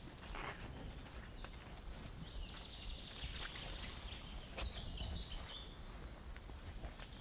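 Slow footsteps on a wet forest path, about one every second or so, over a low steady outdoor rumble. From about two and a half seconds in, a small bird sings one long high-pitched phrase lasting some three seconds.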